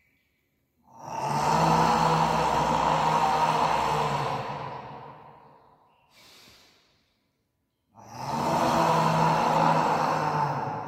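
Lion's breath of Simhasana (lion pose): two long, forceful, throaty exhalations through the wide-open mouth with the tongue stuck out, each a voiced 'haaa' lasting about four to five seconds, with a short faint inhale between them.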